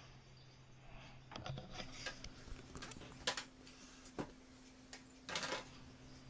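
Faint handling noises of small objects on a counter: a few light clicks and knocks and a short rustle about five seconds in, over a low steady electrical hum.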